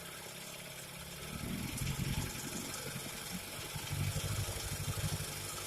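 Early-1950s Goodyear Sea Bee 5 outboard motor running. It is steady at first, then twice grows louder and rougher, about a second and a half in and again near the end.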